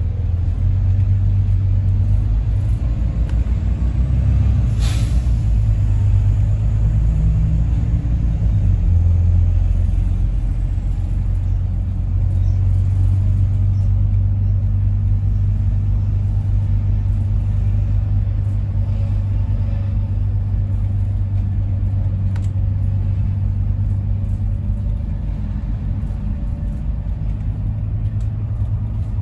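A bus engine and road noise heard from inside a double-decker as a steady low rumble while it drives along, with a sharp click about five seconds in.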